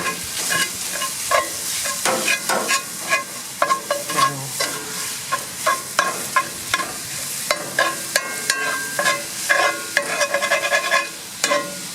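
Metal spatula chopping and scraping loose pork sausage in a cast iron skillet, with many quick sharp strokes against the pan over the steady sizzle of the frying meat.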